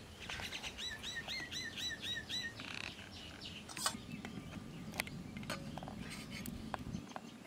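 A small bird singing a quick run of about seven repeated, downward-curving whistled notes over the first couple of seconds. Then a metal spoon clinks and knocks a few times against a metal cooking pot, the sharpest knock about four seconds in.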